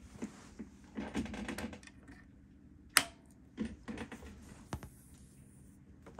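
Scattered clicks, taps and rustles of a guitar being handled and its cable plugged into the amp, with one sharp click about three seconds in. A faint steady hum from the powered-up tube amp sits underneath.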